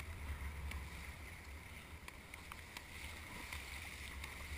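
Sea water rushing and splashing around a sit-on-top tandem kayak as it is paddled through choppy waves, with paddle strokes throwing spray. A steady low rumble of wind on the microphone runs under it, with a few faint ticks.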